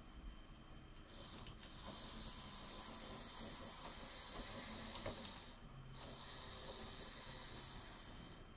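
LEGO train motor running as a remote-controlled LEGO locomotive moves along plastic track: a steady high whirr that starts about a second in, stops briefly a little past halfway, then runs again until near the end. There is a single click just before the break.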